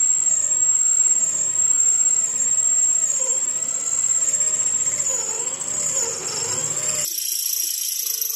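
Hand-held electric drill running a twist bit through a square steel tube, its motor whine rising and falling in pitch as the bit bites into the metal. The sound cuts off abruptly about seven seconds in, giving way to a thinner, higher sound.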